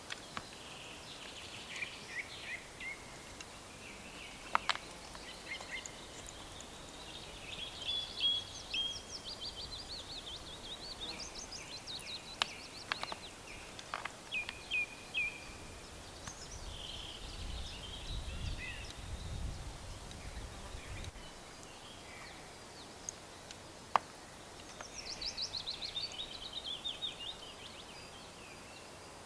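Forest songbirds singing, a series of short chirps and quick trills throughout. A few sharp clicks, with a low rumble lasting a few seconds past the middle.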